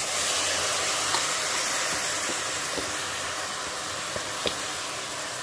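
Hot oil tempering in an aluminium pressure cooker sizzling as wet mixed lentils (moong, toor and masoor dal) are poured in: a loud, steady hiss that slowly dies down, with a few light taps of the steel ladle.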